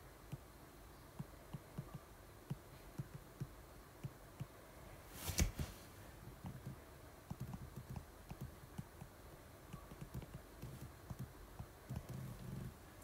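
Stylus tapping and scratching on a tablet screen during handwriting: a run of soft, irregular low taps, with one brief louder noise about five seconds in.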